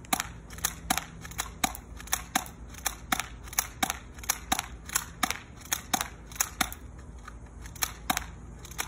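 Airsoft pistol firing a rapid string of shots, about three a second, each a sharp snapping crack, with a short pause about seven seconds in.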